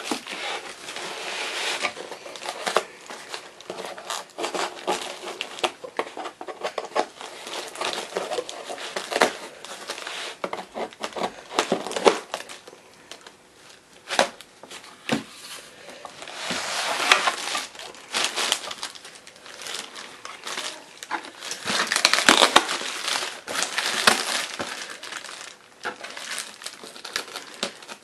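Clear plastic wrapping crinkling and cardboard packing being torn and pulled apart by hand, in irregular crackling bursts that are loudest about two-thirds of the way through.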